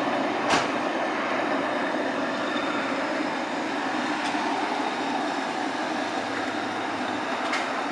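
Steady rushing of a gas pump filling a car's tank through the nozzle, with a few faint clicks.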